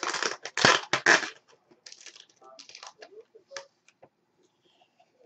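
Plastic packaging bag crinkling and rustling as hands pull at it: a few sharp bursts in the first second or so, then softer scattered crackles and light clicks.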